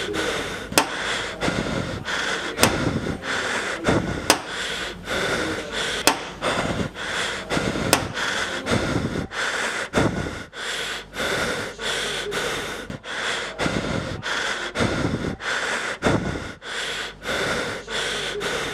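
Foley of a creature breathing: repeated heavy in-and-out breaths and snorts, a few every couple of seconds. Sharp clicks come about every two seconds during the first eight seconds.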